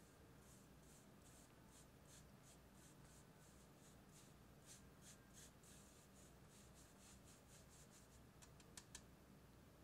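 Flour being sifted through a wire-mesh sieve into a glass bowl: faint, soft rasps about three a second as the sieve is shaken, then two sharper taps near the end.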